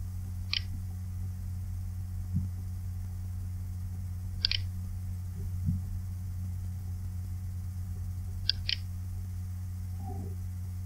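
Steady low electrical mains hum, with a few short sharp clicks over it, two of them in quick succession later on.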